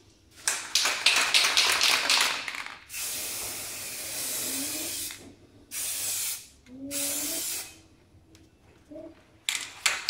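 Aerosol spray-paint can, shaken so it rattles, then sprayed in one long hiss of about two seconds and two shorter bursts. It rattles again near the end.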